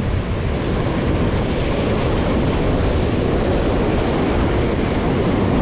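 Strong wind buffeting an action camera's microphone, with surf breaking on the rocks below: a steady, heavy rumbling noise with no distinct events.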